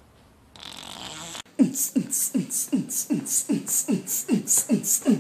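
A fast rhythmic beat: deep booms falling in pitch alternate with sharp hissing hits, about three a second, in the manner of beatboxing. It starts about a second and a half in, after a brief hiss.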